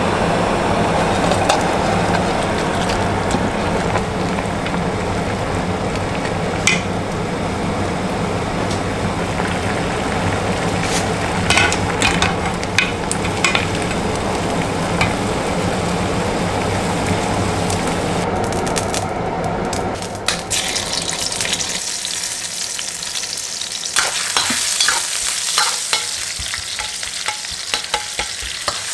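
Water boiling in a stainless steel pot, with a few sharp metal clinks as beans are blanched with a wire strainer. About twenty seconds in, this gives way to oil sizzling and crackling at low heat in a wok as sliced chillies, ginger and garlic are stirred with a metal spatula.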